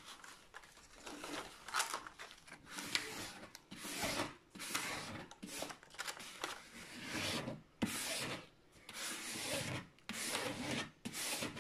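A diamond-painting canvas's protective cover sheet being handled, rubbing and rustling against the canvas as it is lifted and smoothed back down by hand, in a string of irregular strokes.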